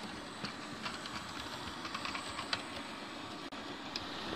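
OO gauge model locomotive, a model of the steam engine Tornado, running past on its track: a steady running noise with light, irregular clicks of the wheels over the rail joints.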